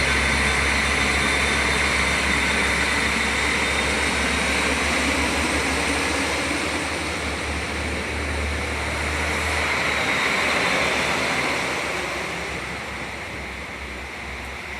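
Diesel train running at the platform: a steady engine hum with a faint high whine, the low hum easing off about ten seconds in.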